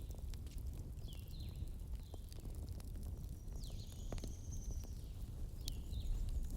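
Campfire crackling, with scattered sharp pops over a low steady rumble. A small bird repeats short chirps that slide downward, and gives one longer high note about midway.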